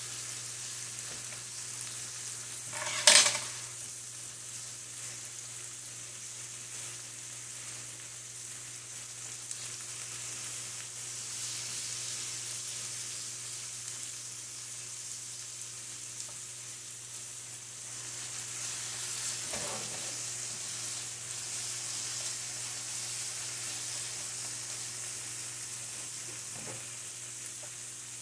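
Marinated pork slices with onions, garlic and carrots sizzling steadily in a frying pan. A sharp knock about three seconds in and two softer ones later come as the meat is turned with chopsticks.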